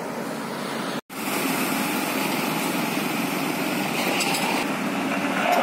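Steady road-traffic engine noise from motorbikes and a water tanker truck passing on the road. The sound drops out for a moment about a second in, then resumes.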